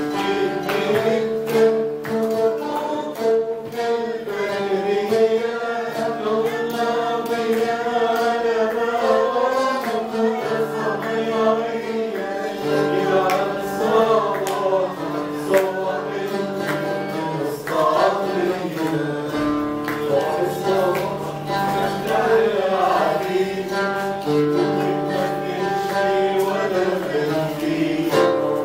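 A man singing a melody with held, wavering notes while plucking an oud to accompany himself.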